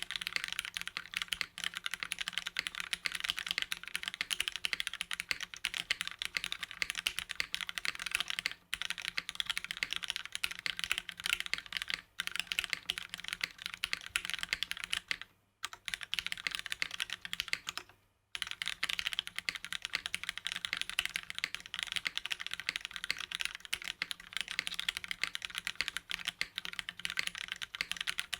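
Fast continuous typing on a mechanical keyboard with Cherry MX Hyperglide Black linear switches, an aluminium plate and GMK doubleshot ABS keycaps: a dense stream of key clacks, broken by a few brief pauses.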